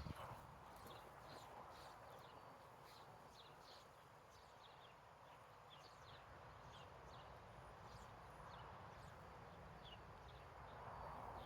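Faint outdoor ambience with small birds chirping: short, high, falling chirps repeating irregularly.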